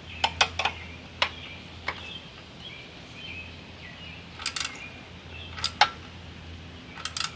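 Scattered sharp clicks and taps of hand tools and small metal parts being handled, in small clusters, over a steady low hum, with faint bird chirps behind.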